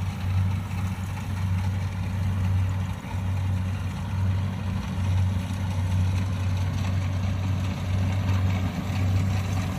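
Rice combine harvester's diesel engine running steadily with a low drone that swells and eases slightly.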